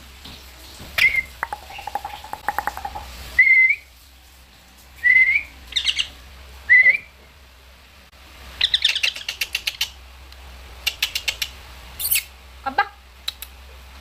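Pet green parakeets calling: several short rising chirps spaced a second or two apart, with quick trains of rapid clicking chatter between them and a sharper call near the end.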